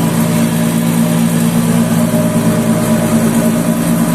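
Nissan X-Trail's drivetrain running with a steady hum made of several low, even tones, a noise the mechanics trace to the rear differential.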